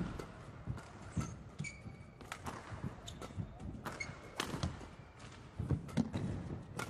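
Badminton players' footsteps thudding on the court mat, with short high squeaks of court shoes and scattered sharp knocks, irregularly, in a large reverberant hall.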